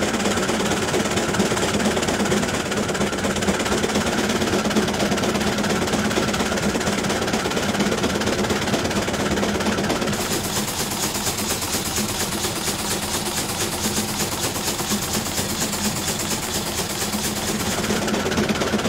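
Self-propelled forage harvester running in standing corn: a steady diesel drone under the dense rush of the chopper and the silage blowing out. From about halfway through there is also a fast, even ticking.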